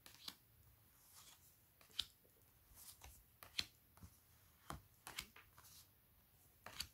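Faint clicks and slides of large oracle cards being moved one by one through the hands, card against card, roughly once a second.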